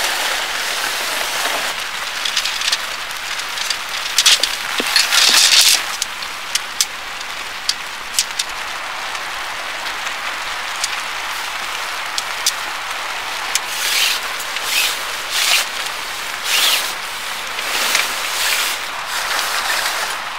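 Steady heavy rain, with short rustling bursts and sharp clicks coming and going over it, loudest about five seconds in and again in a cluster later on.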